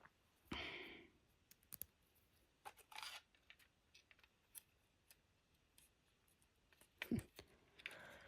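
Faint scattered clicks and a few short scraping swishes, with a sharper knock about seven seconds in: a small model train car and its parts being handled and worked on.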